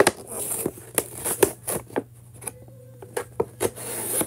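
Stiff clear plastic toy packaging being gripped and pried apart to free a toy monster truck: a run of irregular clicks, crackles and scrapes of plastic.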